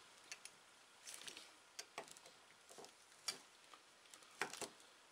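Faint, scattered light clicks and ticks of small two-stroke engine parts being handled over a plastic bag, about a dozen irregular taps with a small cluster about a second in.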